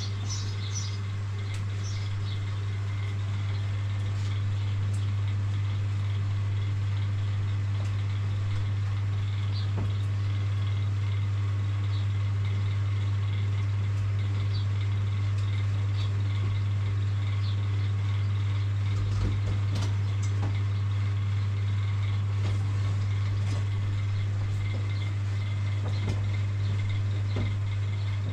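A steady low hum, with a few light taps or knocks over it and faint high chirps in the first couple of seconds.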